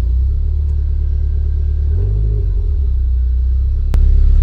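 Nissan S13's turbocharged engine running with a heavy low rumble, the revs rising briefly about two seconds in, as it is run to test a newly fitted boost gauge. A sharp click comes near the end, after which the rumble is louder.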